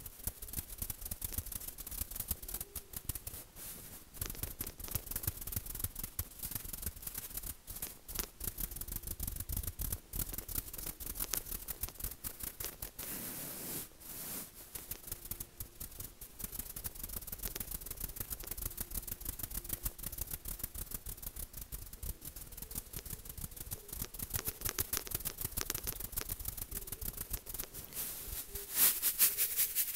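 Rapid, irregular tapping on a hard surface, many quick taps a second, with a brief scratchy rubbing stretch about halfway through and a louder flurry of taps near the end.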